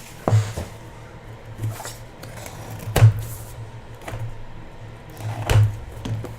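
Handling noises from a trading-card hobby box being opened: three sharp knocks spaced a few seconds apart, with faint rustling in between.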